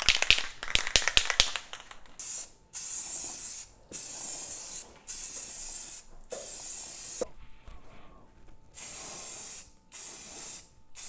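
Aerosol can of yellow spray paint: a quick run of rattling clicks as the can is shaken, then about seven short hissing bursts of spray, each under a second, with a longer pause before the last few.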